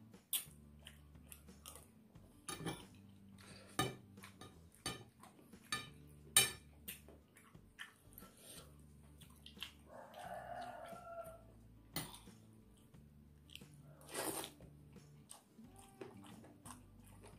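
Metal spoon clicking and scraping against a plate as rice is scooped, with close-up chewing between the clicks. A short animal call sounds about ten seconds in.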